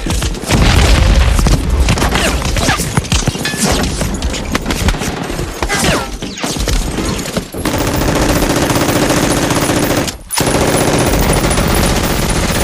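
Film battle soundtrack: dense, continuous rifle and machine-gun fire over a heavy low rumble. About seven and a half seconds in it turns into a steadier stream of rapid fire, broken off for a moment near ten seconds.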